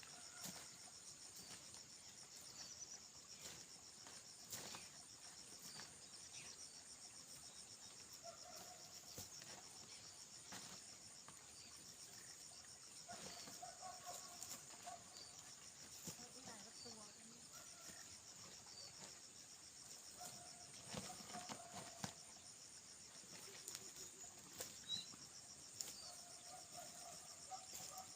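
Faint rural ambience dominated by insects chirring in a continuous high, pulsing trill, with a few faint knocks and short faint calls.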